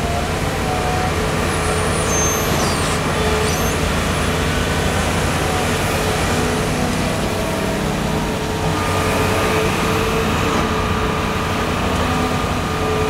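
Caterpillar 320 excavator's diesel engine running steadily under load as it swings a loaded bucket over to a dump truck, with steady whining tones from its working hydraulics.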